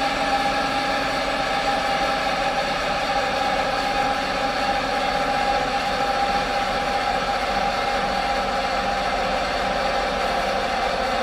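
Detroit Diesel 6-71 two-stroke inline-six diesel running steadily at an even speed, with a steady whine over its rumble.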